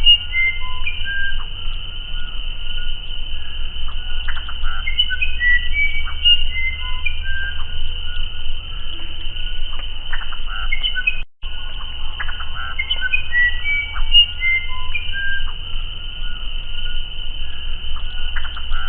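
Musician wren (uirapuru) singing a run of clear, flute-like whistled notes at shifting pitches, over a steady high-pitched tone. The sound cuts out for a moment about eleven seconds in.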